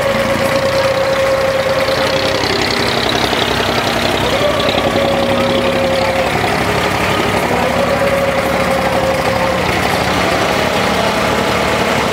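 Engine of an old tour boat running steadily under way. A tone rises and then holds for a couple of seconds about every three seconds.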